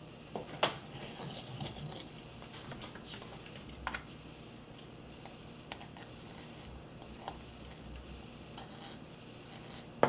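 Faint scattered light clicks and taps of knife work on raw pork baby back ribs, scoring the membrane between the bones, with a sharper click under a second in and a loud click at the end.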